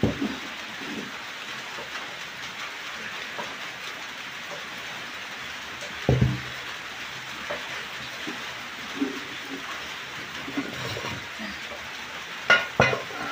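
Steady hiss of rain, with knocks of aluminium cooking pots and lids being handled on a mud wood-fire stove: a heavy thump about six seconds in and a metal lid clattering twice near the end.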